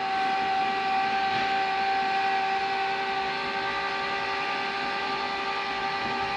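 Electric bunk-bed lift motor in an RV toy-hauler garage running steadily as it moves the bed assembly, an even whine with a clear steady pitch over a mechanical hum.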